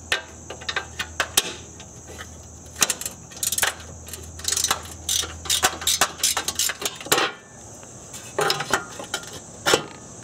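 Ratchet wrench clicking in short runs, with metal clinks, as the bolts holding a car's metal battery tray are loosened and taken out.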